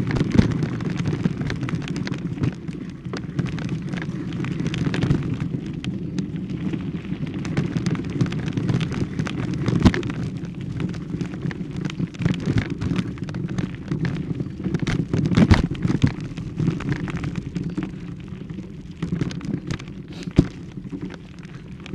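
Continuous rustling and crackling handling noise from a hand-held camera carried while walking, with scattered clicks and knocks from footsteps and the mic being jostled.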